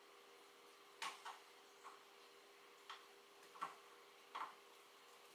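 Near silence with a faint steady hum and about six small, irregularly spaced clicks and light knocks, the loudest about a second in.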